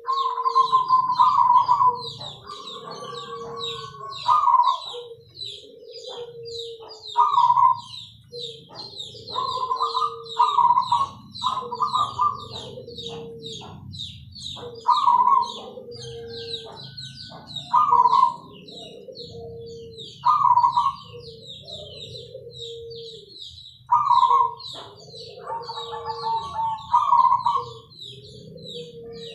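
Several caged zebra doves (perkutut) cooing in loud, repeated phrases every two to three seconds, with the calls at times overlapping. Behind them, a rapid high chirping runs on without a break.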